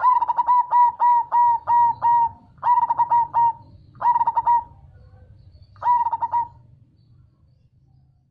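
Zebra dove (perkutut) singing its cooing song: a long run of quick repeated notes, then three shorter bursts, the last about six seconds in.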